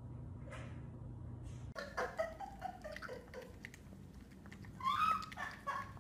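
Puppy eating from a stainless steel bowl, with quick clicks against the metal. Short pitched vocal sounds come over it and grow louder near the end, after a low steady hum in the first second or two.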